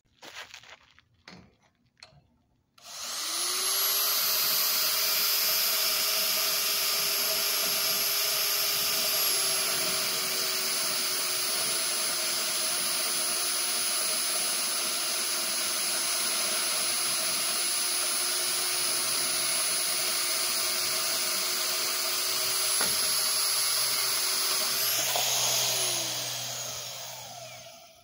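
WEN 94396 10-amp handheld portable band saw cutting through square metal tubing. After a few light clicks, the motor starts about three seconds in and runs with a steady whine for over twenty seconds. Near the end it winds down, falling in pitch.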